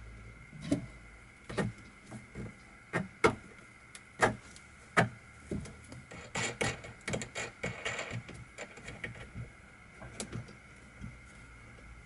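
A metal bolt clicking and knocking against a plastic pipe as it is pushed through drilled holes and a wing nut is fitted. The sharp clicks are irregular, with a busier clatter of small taps past the middle.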